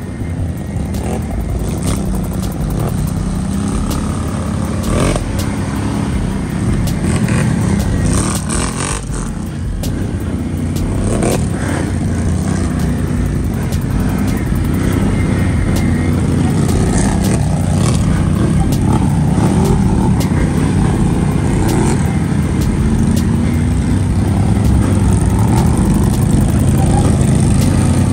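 Can-Am Renegade XMR 1000 ATV with aftermarket exhaust, its V-twin engine running steadily under way and a little louder in the second half, with sharp clicks and rattles from the ride over gravel. Near the end the tyres splash through shallow creek water.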